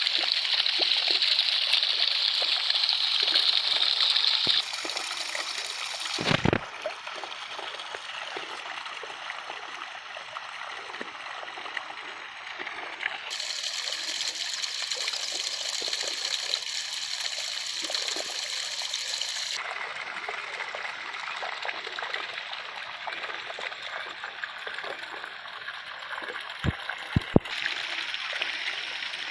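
Running water trickling and flowing, its sound changing abruptly every few seconds where separate recordings are cut together. A few brief knocks near the end.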